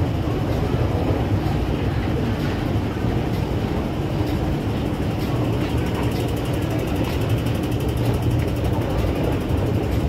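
Steady low mechanical rumble of a metro station, heard while riding a running escalator, even in level throughout.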